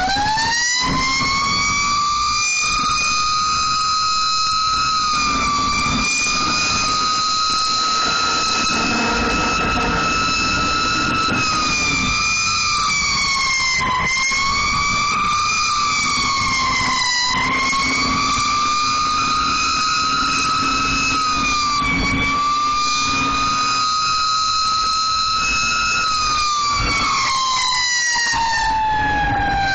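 Emergency vehicle siren wailing: its pitch climbs at the start, holds high with several short dips, then slides down near the end before rising again. A low engine rumble from the vehicle runs underneath.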